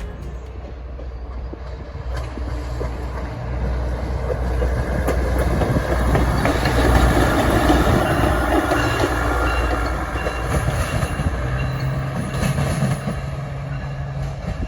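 Diesel train passing: a low engine hum with wheels clicking over the rail joints, growing louder to a peak about seven seconds in and then easing off.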